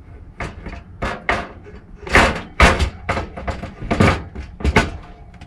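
Olympian Wave 6 catalytic propane heater being hung onto its wooden mounting frame: a run of knocks and clunks as the heater's metal case bumps against the frame, with the loudest ones in the second half.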